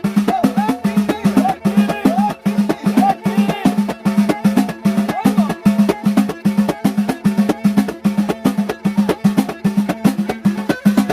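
Instrumental passage of Moroccan folk music: fast, dense hand-drum percussion under a melodic line that slides and bends in pitch.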